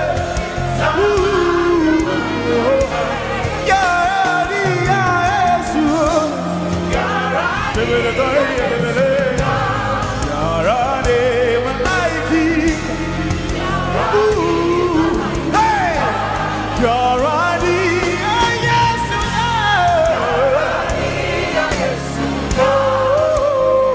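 Live gospel worship music: sung vocals with long gliding, ornamented lines over a steady instrumental backing.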